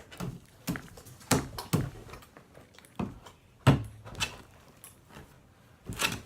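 Irregular knocks and thumps, about eight in six seconds, the loudest a little under four seconds in.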